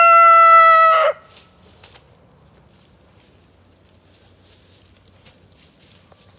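A rooster crowing: the end of one long crow, which cuts off about a second in, followed by faint rustling.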